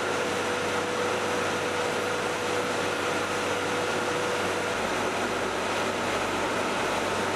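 Plastic bag-making machines running with a steady mechanical din; a steady hum in it stops about two-thirds of the way through.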